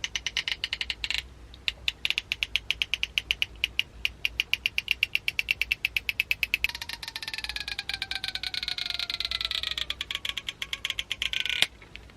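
Stretch-release adhesive strip under an iPhone SE battery being pulled out: a fast crackling of clicks, then a denser crackle with a slowly falling squeal in its second half. It stops with a sharp snap near the end as the glue lets go.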